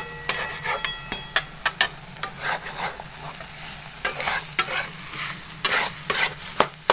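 Steel spatula scraping and knocking against a steel kadhai in irregular strokes while stirring a thick, dry egg bhurji, with the food frying in the pan.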